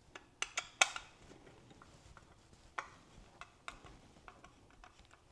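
Scattered light clicks and taps of hands handling small parts, with the sharpest clicks about a second in and near three seconds.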